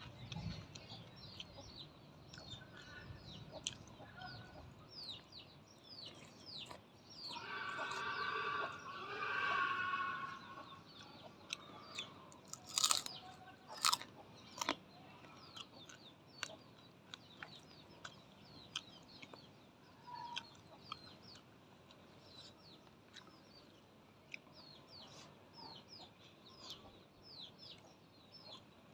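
Chickens clucking, with one louder drawn-out chicken call lasting about three seconds, over a constant run of short, high, falling chirps. A few sharp clicks come about halfway through.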